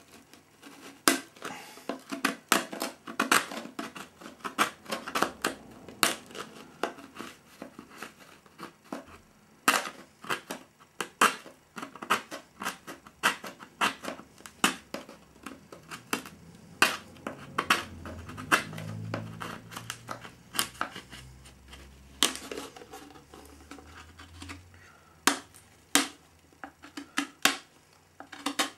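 Brittle cured epoxy-and-glass flashing cracking and snapping as it is broken off the seam edge of a moulded fibreglass part, in irregular sharp clicks several times a second.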